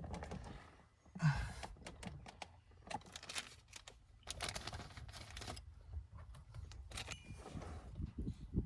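Scattered clicks, taps and short rustles of hands working a thin microphone cable in behind plastic dashboard and pillar trim.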